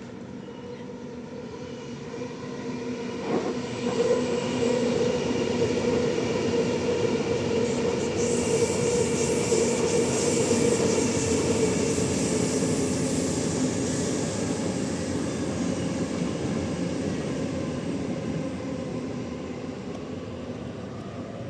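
Electric suburban passenger train passing, its sound building over the first few seconds with a steady motor hum, loudest through the middle, then slowly fading away.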